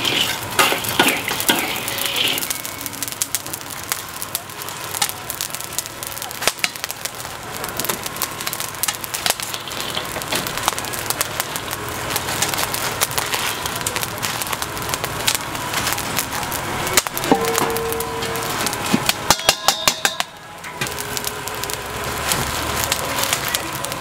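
Cooking clatter at a street-food stall: a steady crackling hiss with frequent sharp knocks and clicks, and a quick run of harder knocks about three-quarters of the way through.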